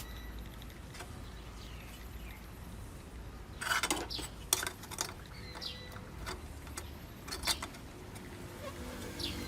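Light clicks and a short clatter of small metal parts and tools being handled, with a brief burst of scraping about four seconds in and a few single knocks after it.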